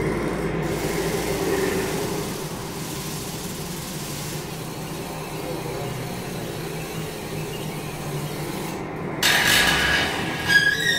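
Amplified rasping and rubbing of objects worked by hand, part of an object-percussion piece with electronics. About nine seconds in a sudden burst of noise comes in, and near the end high ringing tones sound.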